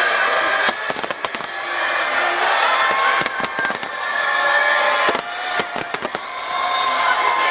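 Fireworks bursting in quick succession, many sharp bangs and crackles, with music playing underneath.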